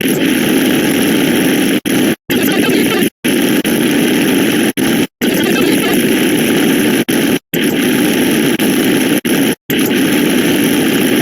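A harsh, loud wall of many overlapping sound effects piled into one dense noise. It breaks off into brief, sudden silences every second or two.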